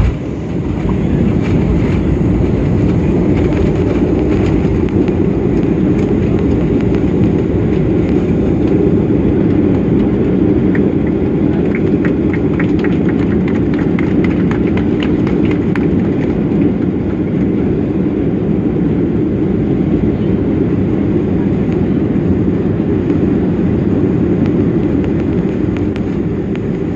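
Cabin noise of a jet airliner rolling out on the runway after touchdown, spoilers up: a loud, steady rumble, with a run of rattling clicks about halfway through.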